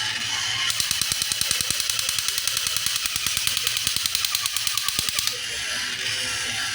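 A rapid, even run of mechanical clicks, about ten a second, with a high hiss. It starts just under a second in and stops suddenly after about four and a half seconds, over quiet background music.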